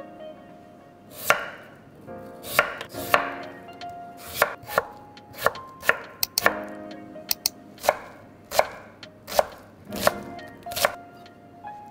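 Chef's knife chopping potato and then red onion on a wooden cutting board: single sharp knocks of the blade striking the board, roughly one or two a second, unevenly spaced.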